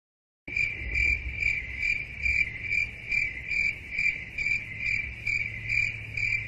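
Stock cricket-chirp sound effect: evenly spaced chirps, a little over two a second, starting after about half a second of dead silence. A steady low hum runs underneath.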